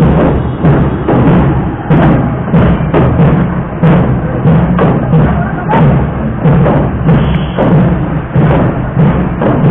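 Procession drums beating a steady rhythm, about two strikes a second, over a loud, continuous music bed with a steady low tone underneath.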